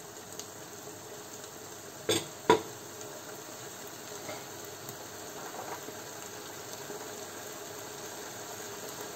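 Mushrooms and sofrito sizzling steadily in a frying pan over high heat. About two seconds in come two sharp clacks of kitchen utensils.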